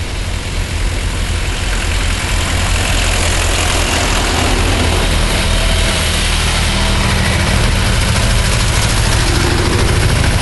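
Several vintage farm tractors driving past one after another, their engines running at a steady low chug that grows louder over the first couple of seconds as they approach.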